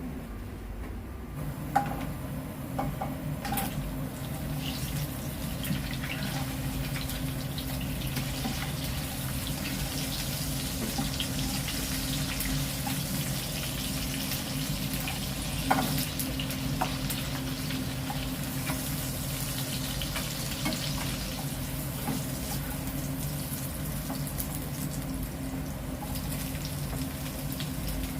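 A stir-fry sizzling steadily in a pan, the hiss growing over the first several seconds, over a low steady hum, with a few light clicks.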